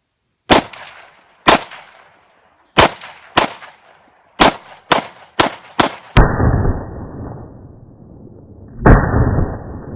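AR-15 rifle fired eight times in semi-automatic, the shots coming quicker toward the end, each with a short echo. Then the sound turns to slowed-down, muffled rumbling with one deep boom near the end: a shot played back in slow motion.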